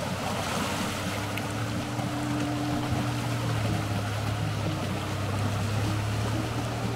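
A 2023 Chevrolet Colorado ZR2's 2.7-litre turbo four-cylinder engine running steadily as the truck fords a creek, over a constant rush of water.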